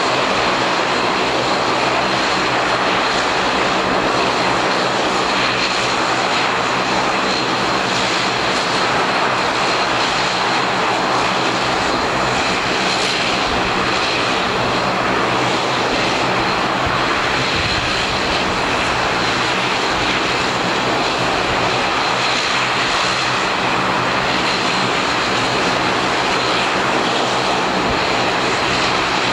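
Bombardier DHC8-Q400's Pratt & Whitney Canada PW150A turboprop engines idling steadily on the ground: an even engine and propeller rush with a steady high whine over a low hum.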